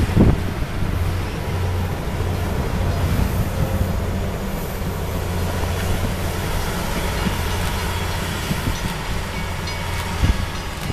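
Rail grinder train rolling past, its diesel power units running with a steady low hum over the noise of the wheels on the rails.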